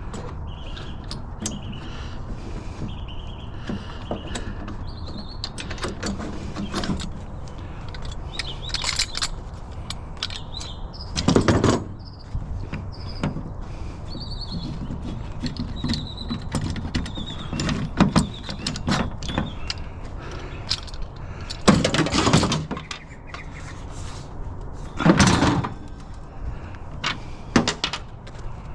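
Knocks and clatters from scrap being handled, three of them loud, over a steady low rumble, with birds chirping high in the background.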